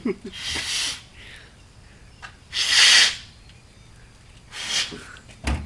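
Broken bicycle horn tooted three times, each toot a breathy rush of air with no tone, the loudest about three seconds in. A dull thump comes just before the end.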